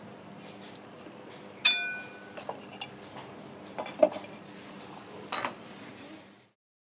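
A clay lid clinking and knocking against the rim of an unglazed clay pot as it is set in place: a ringing clink a couple of seconds in, a sharper knock about four seconds in, and a softer one a little later.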